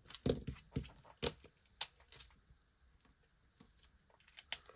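Hands handling banknotes and budget envelopes: a handful of short clicks and rustles in the first two seconds, then a quiet stretch and two more clicks near the end.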